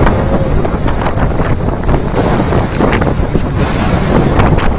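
Debris flow of boulders and mud coming down a mountain channel: a loud, steady rumbling roar with repeated knocks and clatters of rocks striking one another.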